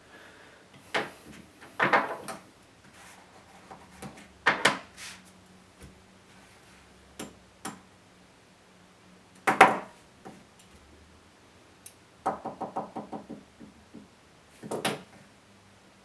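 Scattered knocks and taps at irregular intervals, with a quick run of about eight taps about twelve seconds in.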